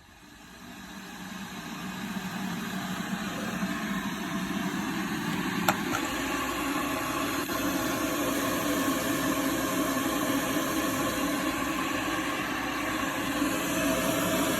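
Electrolux E7K1-6BP electric kettle heating water: a steady hiss from the element starts up and grows gradually louder, with a single click about six seconds in.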